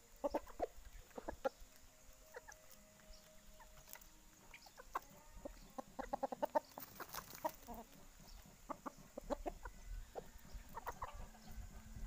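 Hens clucking, faint, with scattered short sharp clicks and taps as a caged poksay mandarin (a laughingthrush) pecks at a plastic cup of berries, the taps thickest about halfway through.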